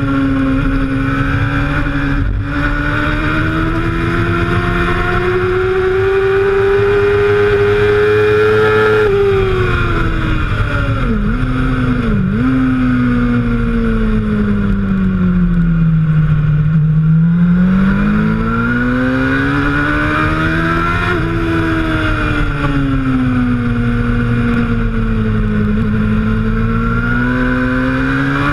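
Suzuki GSX-R750 inline-four race-prepped motorcycle engine heard from on board, with a steady rush of wind. The engine note rises under power, then falls off under braking with two quick dips as it changes down. It bottoms out through a slow corner, then rises again as the bike accelerates out.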